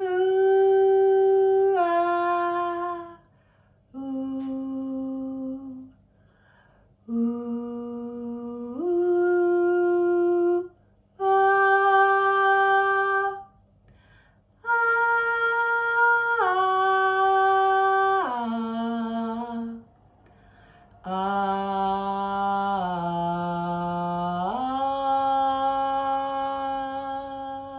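A woman's voice singing long, held notes in six phrases, each stepping up or down between two or three steady pitches, with short pauses between phrases. It is a simple beginner's vocal exercise built on three sounds.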